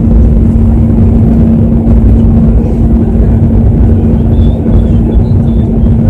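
Airliner cabin noise in flight: a loud, steady rumble of engines and rushing air with a steady low hum, heard from inside the cabin.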